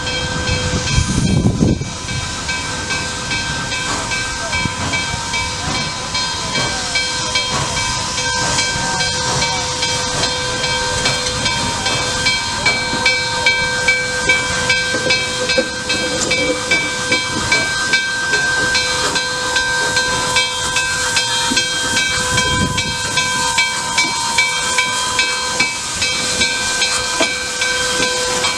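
Nickel Plate Road 765, a 2-8-4 Berkshire steam locomotive, rolling slowly past with steam hissing. From about halfway through, its exhaust chuffs come through regularly, about one and a half a second. A bell rings steadily throughout.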